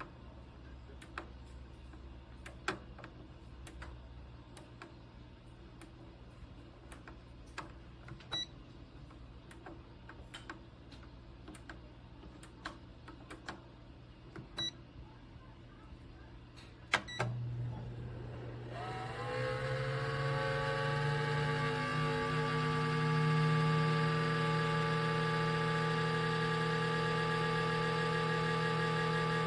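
Clicks and a few short beeps from a digital air fryer toaster oven's control panel, then a sharp click as the Cuisinart air fryer toaster oven's convection fan motor starts. The fan spins up, rising in pitch, and settles into a steady hum.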